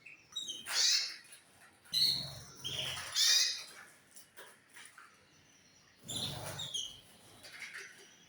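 Canaries chirping in three short clusters of quick, high calls with falling notes.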